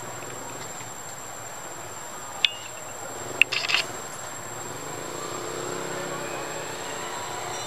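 Steady high-pitched insect drone of a tropical forest. A sharp click comes about two and a half seconds in, and a brief cluster of clicks follows about a second later.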